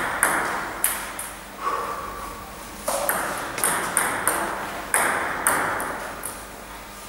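Table tennis rally: the ball clicking sharply off the bats and the table, about two hits a second, each hit echoing briefly in the hall.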